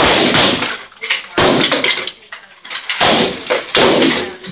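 Rattan swords striking shields and armour in SCA heavy-combat sparring: a run of loud, sharp cracks and clatters, about five hits with short gaps between them.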